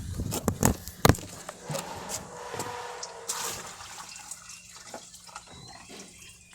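Water running and splashing inside a dishwasher as it fills from a hose, with a few sharp clicks in the first second and a faint steady hum underneath.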